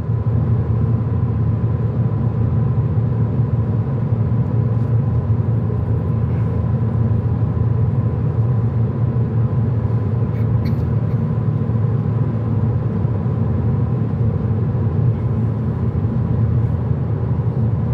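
A car in motion, heard from inside the cabin at motorway speed: a steady low rumble of road and engine noise with a thin, steady high tone above it.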